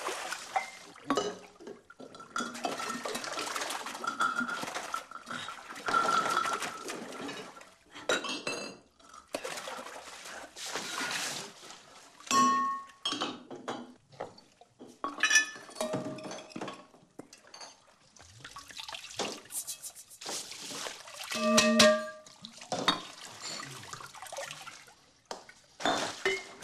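Glass carafes and a perfume bottle clinking, and liquids being poured and splashed into a filled bathtub, in separate bouts with short quiet gaps between them.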